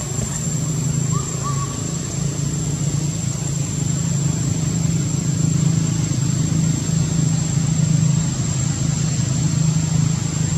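A steady low engine-like hum with a constant high-pitched whine over it, even in level throughout.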